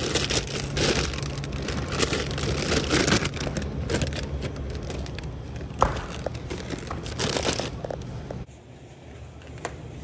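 Crinkling and rustling of a plastic bag of frozen waffle fries being handled, with a steady low hum under it. The sound stops abruptly about eight and a half seconds in.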